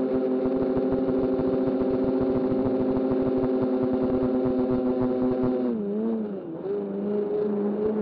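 Remote-controlled aircraft's motor and propeller running as a steady whine, with wind rumbling on the onboard microphone. About three-quarters of the way through, the pitch drops, wavers briefly and settles slightly lower.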